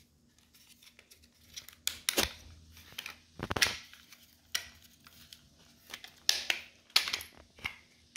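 Plastic clips of a Yuneec Mantis Q drone's body shell snapping into place as the top cover is pressed on by hand: a string of irregular sharp clicks amid plastic handling rustle.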